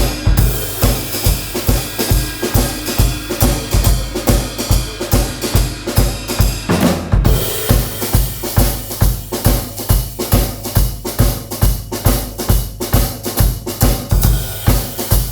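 Drum set played in a fast, driving groove: bass drum about three times a second under snare hits and ringing cymbals. The pattern changes about seven seconds in.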